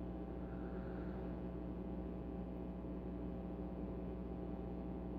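Steady low background hum with a light hiss; no distinct pin clicks stand out.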